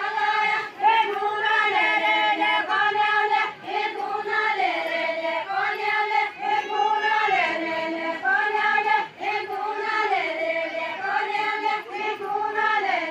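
A group of voices singing a Deuda folk song in unison without instruments. The melodic phrase repeats, stepping down in pitch every couple of seconds.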